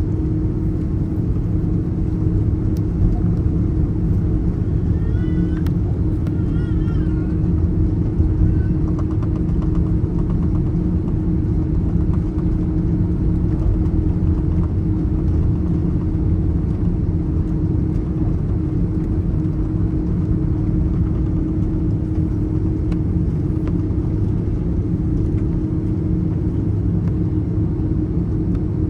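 Steady cabin noise inside an Airbus A330 airliner: a constant low rumble from the jet engines with a steady hum.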